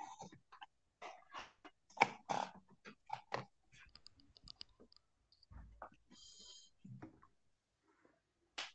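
Irregular clicking and tapping on a computer keyboard, busiest in the first few seconds and then sparser. A low thump about five and a half seconds in, and a brief high tone just after it.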